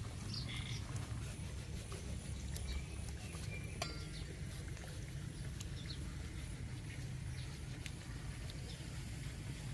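Outdoor ambience: a steady low rumble with a few faint, short high chirps and scattered light clicks.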